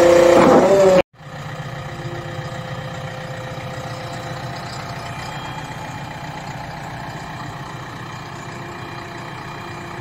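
JCB 3DX backhoe loader's diesel engine: louder and working, with a held whining tone, until it cuts off abruptly about a second in, then idling steadily and more quietly.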